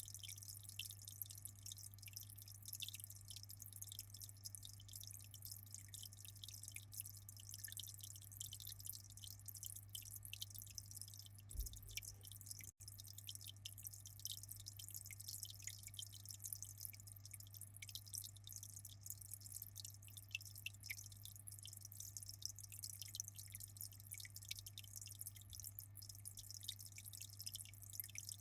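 Quiet aquarium water trickling and splashing in a dense, steady patter of small drips, over a steady low hum from the tank's equipment.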